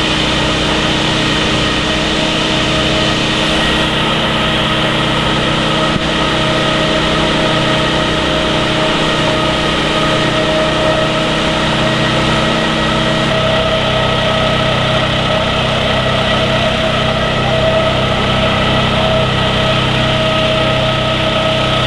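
Fire-service engine running steadily at a constant speed, a continuous drone with a steady whine over it; the low end shifts slightly about 13 seconds in.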